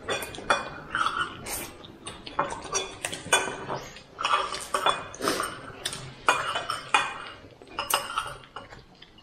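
Dishes and cutlery clinking and clattering while eating, with irregular sharp knocks, some with a short ring.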